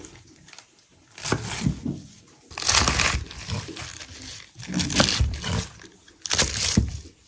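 Crinkling, rustling handling noise in four bursts of about a second each; the first is softer.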